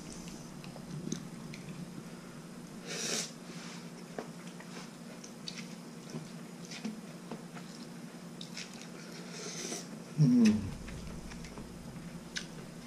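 Thin rice noodles being slurped and chewed from a large bowl of nam ngiao soup, with small clicks of chopsticks against the bowl. There are slurps about three seconds in and again near ten seconds, and a short voiced sound rising in pitch just after the second slurp.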